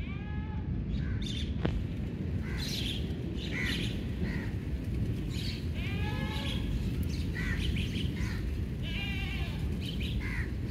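Livestock bleating several times, each call arching in pitch, with birds chirping between the calls, over a steady low rushing noise.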